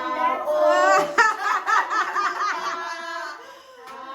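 Children's excited voices laughing and cheering together, with a quick wavering trill of laughter about a second in, dying down near the end.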